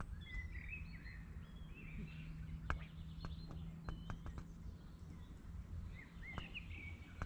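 Birds singing, short chirping phrases throughout, over a steady low rumble, with a few scattered sharp clicks.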